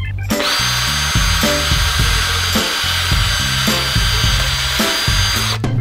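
Cordless drill running steadily, boring a 6 mm hole through plastic irrigation pipe, with a high motor whine that starts just after the beginning and stops near the end. Background music plays underneath.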